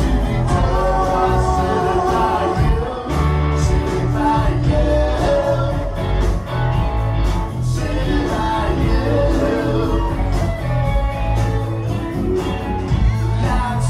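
Live rock band playing a song with electric guitars, bass and drums and a singing voice, recorded from the room with a handheld recorder.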